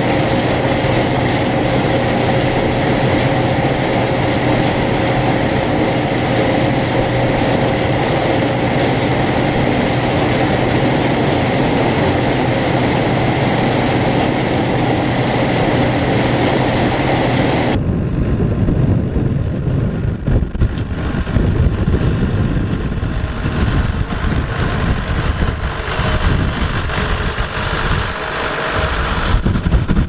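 1977 Gleaner M2 combine running steadily while its corn head takes in rows of standing corn: a loud, dense machine din with a constant hum. About two-thirds of the way through it cuts abruptly to wind rumbling and buffeting on the microphone, with an engine idling underneath.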